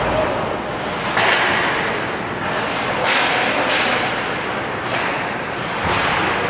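Ice hockey play echoing in an indoor arena: skate blades scraping the ice and sticks and puck clacking, with a sharp hit or scrape about once a second over a steady rink hiss.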